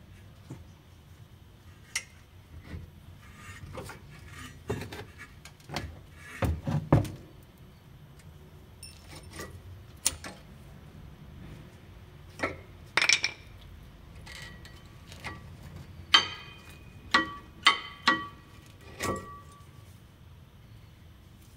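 Metal tools and parts being handled during brake work: a run of irregular clinks and knocks, a few of them near the end ringing briefly.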